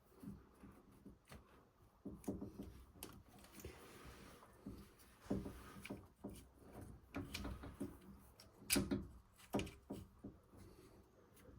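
Hands and tools working on a washing-machine motor: scattered light clicks, knocks and rubbing of small parts, with two sharper knocks about nine seconds in.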